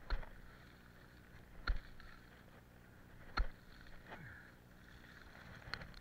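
A wooden-handled garden tool striking into leaf-covered ground in repeated blows, about one every second and a half to two seconds: three sharp strikes and a lighter one near the end.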